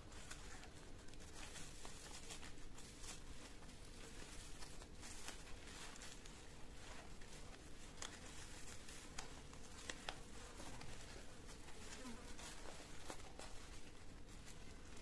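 Faint rustling and scattered light clicks of cotton string being wound around a parcel of pumpkin leaves and pulled tight.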